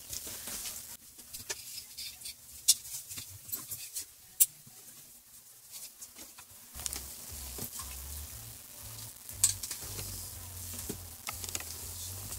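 Scattered clicks, taps and rustling from power cords and a plastic power strip being handled and plugged in, a few sharp clicks standing out. A low rumble comes in about seven seconds in.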